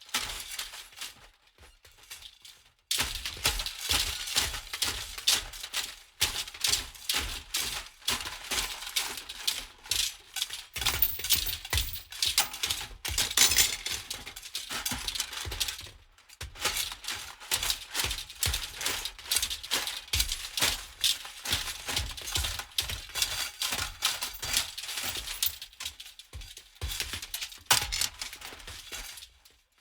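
Metal rattling rhythmically in fast, dense clattering strokes, in several long runs broken a few times by brief pauses.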